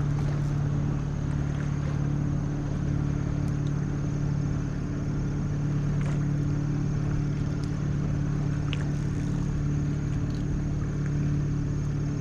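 Mercury outboard motor running steadily at a constant low speed, an even hum that does not rise or fall, with a few faint ticks over it.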